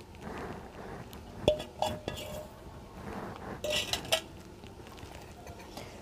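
Light clinks of stainless steel bowls and utensils being handled, each with a brief metallic ring: a few around one and a half to two seconds in, the first the loudest, and another cluster near four seconds.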